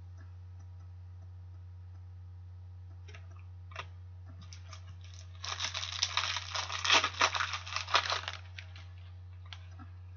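Thin plastic card sleeve crinkling and crackling as a hockey trading card is handled and slid into it. A few faint clicks come first, then a dense crackle of about three seconds around the middle. A steady low electrical hum runs underneath.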